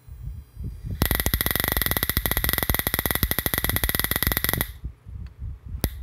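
Springer Magrath Hot Shot stock prod firing, its spark arcing to a screwdriver shank held across the tip electrodes: a loud, rapid crackle with a steady high whine that starts about a second in and cuts off suddenly after almost four seconds. A single sharp click follows near the end.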